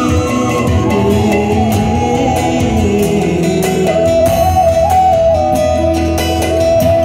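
Live band music of a Tamil Christian worship song, with a held, gently ornamented lead melody over keyboard accompaniment and a steady beat.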